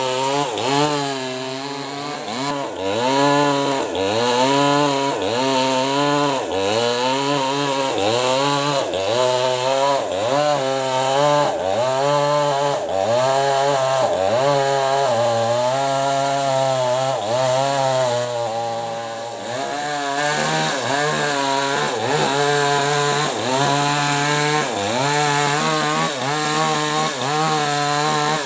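Small two-stroke Maestro CS6500L chainsaw ripping lengthwise through acacia wood. The engine pitch sags and recovers about once a second as the chain loads in the cut. About two-thirds of the way in it eases off briefly, then runs steadier at higher revs.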